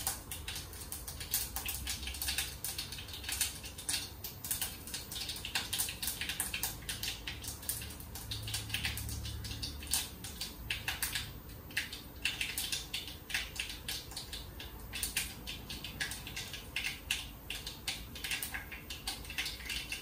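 Mustard seeds popping and crackling in hot coconut oil in a clay pot: a dense, irregular run of sharp little pops. This is the tempering stage, the sign that the oil and the clay pot are now well heated.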